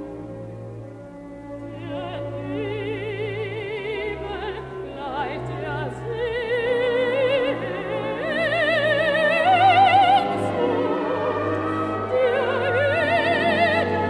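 Mezzo-soprano singing with strong vibrato over an orchestra holding low sustained notes. Her voice comes in about two seconds in and climbs higher, loudest about ten seconds in.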